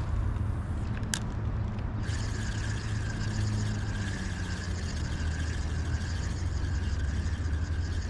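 Spinning reel cranked steadily from about two seconds in, a whirring with fine rapid ticking, after a sharp click about a second in. A steady low rumble runs underneath.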